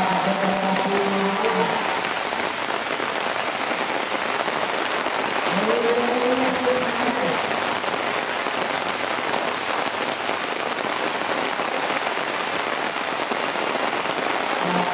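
Heavy rain pouring onto a river's surface, a steady dense hiss of drops hitting water. Two brief faint pitched calls stand out over it, one at the start and one about six seconds in.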